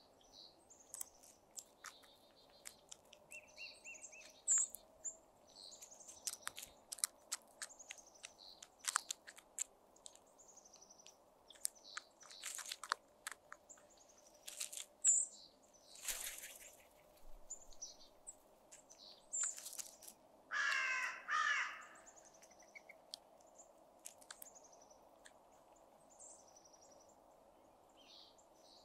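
Crows pecking at a pile of seed on gravel: a scatter of sharp taps and clicks. Small birds chirp high in the background, and a crow gives two short caws close together about two-thirds of the way through.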